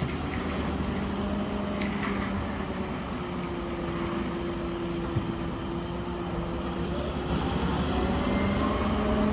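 A steady mechanical drone, like a motor running at a constant speed: a low hum over a bed of noise, shifting slightly in pitch.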